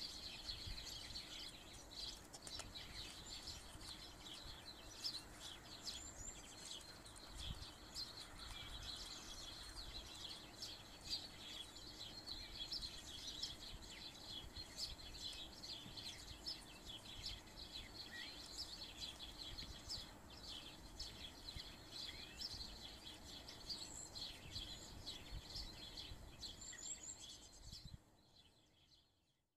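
Small birds chirping steadily in the background, with faint rustling and creasing of paper as an origami airplane is folded by hand. It fades out near the end.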